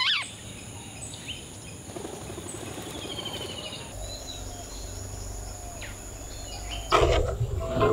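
Garden ambience: a steady high-pitched insect drone with scattered bird chirps, a falling call at the start and a short rippling trill about three seconds in. Near the end comes a louder burst of knocking.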